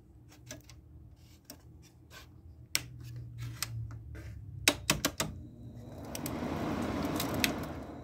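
Rotary control knobs of a window air conditioner clicking as they are turned, a run of sharp clicks. About three seconds in a low hum starts as the unit comes on. Near the end a broad rushing noise swells up and then fades.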